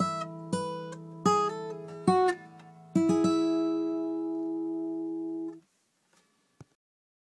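Acoustic guitar music: plucked notes, then a final chord about three seconds in that rings for around two and a half seconds and cuts off suddenly.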